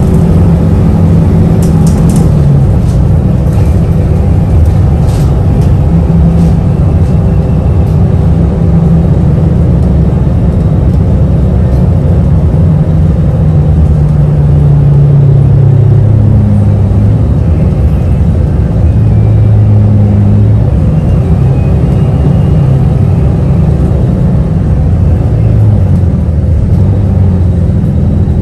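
Engine and road noise heard from inside a moving city bus: a steady low rumble whose pitch drops and rises a few times as the bus changes speed.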